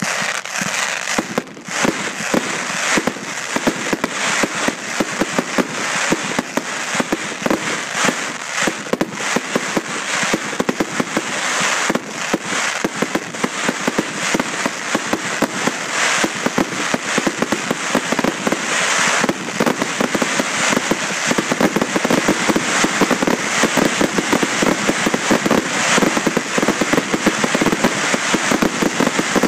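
Fireworks display with white crackling stars and ground fountains: a dense, unbroken crackle of many small rapid pops.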